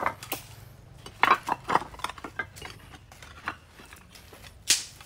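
Scattered clinks and knocks of hard objects being handled and set down, with a quick cluster about a second in and one sharp clack near the end.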